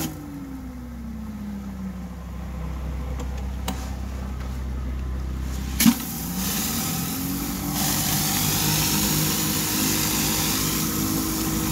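A 4,000 PSI hot-water pressure washer running with a surface cleaner on concrete. The spray hiss cuts off and the engine slows down, then after a sharp click about six seconds in the engine speeds back up and the spray hiss returns.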